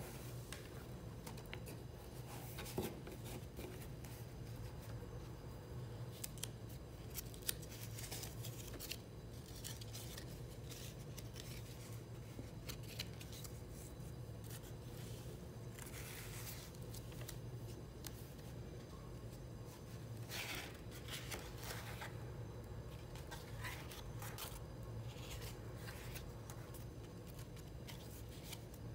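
Stiff, weathered watercolour sketchbook pages and a leather book cover being handled and turned: scattered dry paper rustles and crinkles with a few small taps, over a faint low hum.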